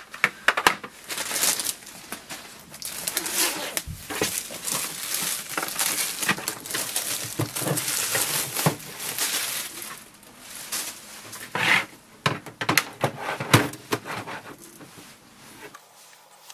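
Clear plastic wrap crinkling and rustling as it is peeled off a small inkjet printer, with sharp crackles and a few louder snaps of handling. It goes quiet near the end.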